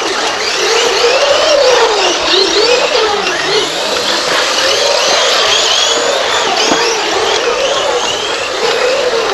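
Several radio-controlled model racing cars lapping the track together, their motors whining in overlapping tones that rise and fall in pitch as they speed up and slow down.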